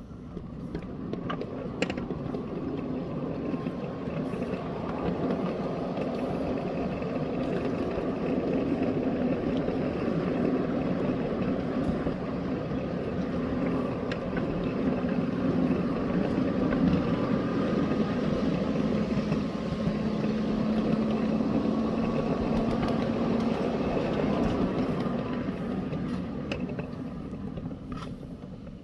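Ride-on miniature locomotive moving off and running along the track with a loaded car of ballast stone, its motor and drive running steadily with the wheels rumbling on the rails. It builds up about a second in and dies away over the last few seconds as the train slows.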